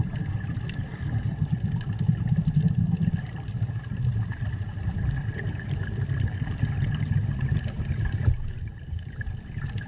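Underwater ambience picked up by a dive camera in its housing: a low, fluctuating rumble of water movement with a faint steady high hum and scattered small clicks. A brief knock comes about eight seconds in, and the rumble is a little lower after it.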